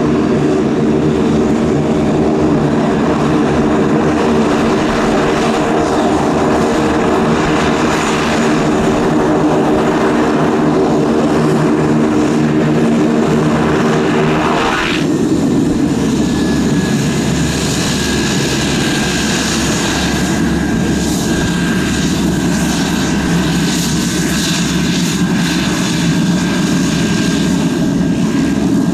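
Beechcraft 1900 twin turboprop taxiing with its two Pratt & Whitney PT6A engines running, a steady multi-tone propeller drone. About halfway through, as the aircraft turns, the sound shifts quickly and a steady high turbine whine takes over.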